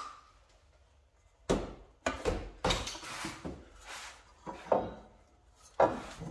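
New exhaust tailpipe section knocking and scraping against the underbody as it is handled into position: a quiet second and a half, then a run of irregular sharp knocks and rubs.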